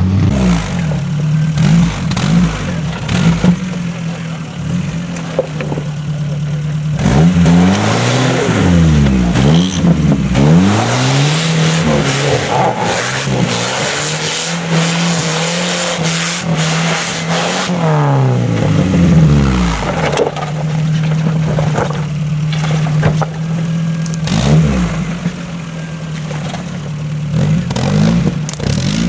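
Off-road 4x4's engine revving hard up and down again and again, dropping back to a steady idle in between. A loud rushing noise sits over the revs for several seconds in the middle.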